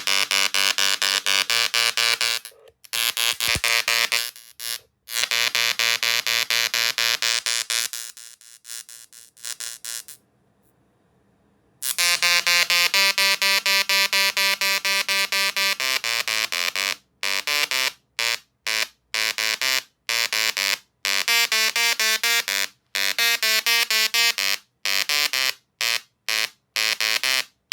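Tesla coil discharges giving a loud, harsh electric buzz that jumps between pitches like notes and cuts in and out. It falls silent for about two seconds around ten seconds in, then comes in short pulses with rapid breaks through the second half.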